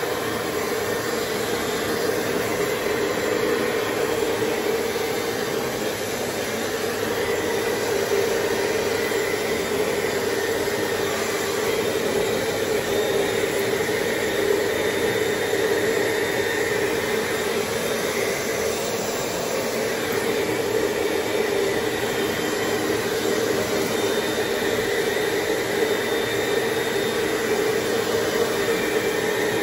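A machine running with a steady whirring hum, even and unchanging throughout.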